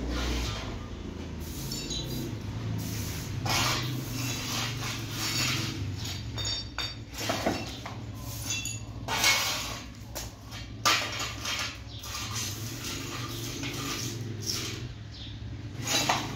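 Dishes and kitchenware being handled: repeated clattering and scraping, with a few ringing clinks near the middle and the sharpest knocks in the second half, over a steady low hum.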